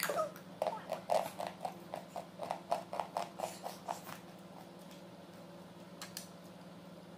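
A small child huffing quick, short, voiced breaths, about five a second for some three and a half seconds, trying to cool a mouthful of rice that is too hot, then stopping.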